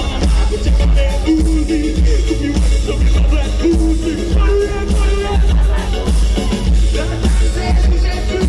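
Loud live band music: a drum kit with a heavy, constant bass, plus keyboards and electric guitar, and a vocalist singing into a microphone over it.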